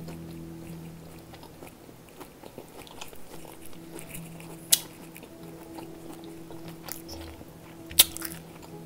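A person chewing a crisp-crusted fried pork chop with open-mouthed smacking, with a sharp smack near the middle and another near the end. A steady low hum runs underneath.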